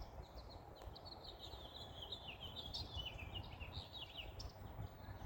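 Small birds chirping in a fast, continuous run of short, high notes that dip slightly lower in pitch midway, over a low background rumble.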